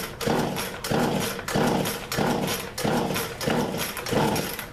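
Poulan Pro two-stroke chainsaw being pull-started, with about seven quick yanks of the recoil starter cord in a steady rhythm. Each yank gives a short rattly whirr as the engine turns over, and the engine does not catch.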